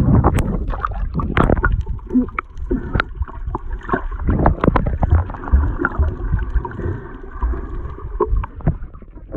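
Surface wind and waves for the first second or so. Then the microphone goes underwater and the sound turns muffled: gurgling bubbles, water sloshing, and scattered knocks and clicks against the phone.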